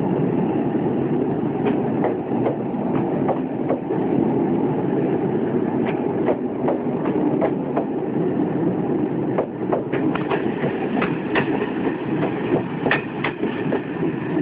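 SNCF passenger coaches of a departing train rolling past, their wheels giving an irregular run of clacks over rail joints and points on top of a steady rumble; the clacks come thicker in the second half.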